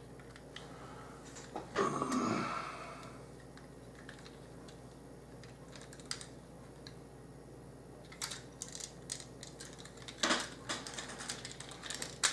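Hard plastic parts of a G1 Optimus Prime transforming toy clicking and clattering as it is handled and transformed by hand. There is a short rustle about two seconds in, a few scattered clicks, then a quicker run of clicks from about eight seconds in.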